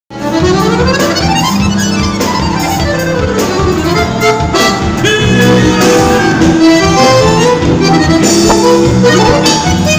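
Piano accordion playing a gaúcho dance tune live, with a steady bass line and beat underneath.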